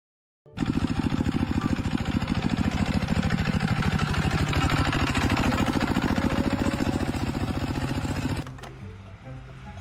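A loud engine-driven machine starts up suddenly about half a second in and runs with a fast, even pulsing beat, then drops to a much quieter sound near the end.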